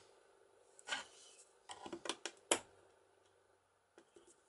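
A handful of light metallic clicks and taps as the parts of a cabin-door lock mechanism (lever plate, spring and follower hub) are moved by hand and prodded with a screwdriver, the sharpest click about halfway through.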